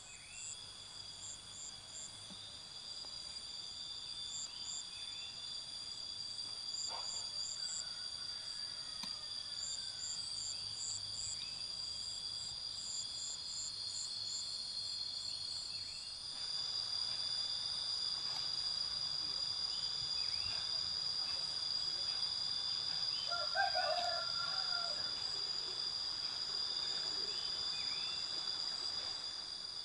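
A steady chorus of insects trilling, several high continuous tones at once, with short repeated chirps over it. The chorus grows louder about halfway through.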